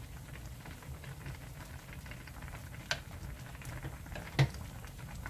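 Korean jeon-jjigae stew bubbling at a simmer in a pot, a fine steady crackle of bursting bubbles, as a wooden spoon bastes broth over the top. Two sharp knocks cut through, about three seconds in and again a second and a half later, the second the louder.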